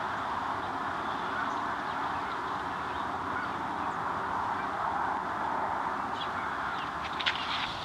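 Steady outdoor background hiss and rumble, with a few faint, short high sounds and a small click near the end.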